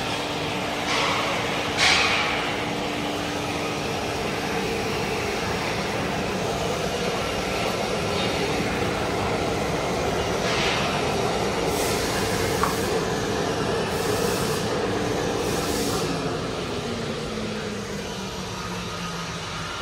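PR GL-400 slab-edging line running: electric motors and circular saws make a steady hum while a pine slab is fed through and cut into boards. Several brief hissing bursts come from the cut. About sixteen seconds in, the hum falls in pitch and the noise eases off.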